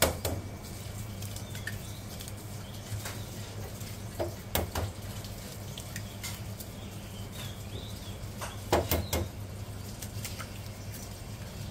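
Wok cooking: a metal spatula knocking against a wok in a few sharp strikes, two close together about four and a half seconds in and again about nine seconds in, over a steady low hum.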